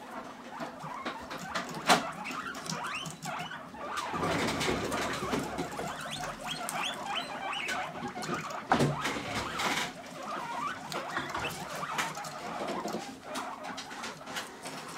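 Several guinea pigs feeding side by side, with chewing, rustling in wood shavings and many short high squeaks that grow busiest in the middle, plus a few sharp knocks, the loudest just before the middle.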